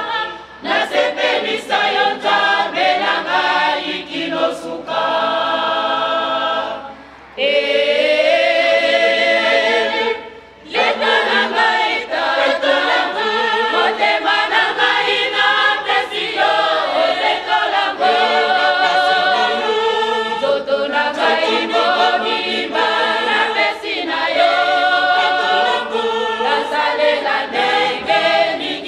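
Women's choir singing together in several parts, with brief breaks between phrases about 7 and 10 seconds in.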